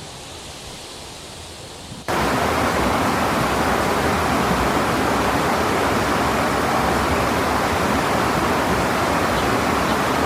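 Steady rushing river water, loud and even, starting abruptly about two seconds in after a quieter outdoor hiss.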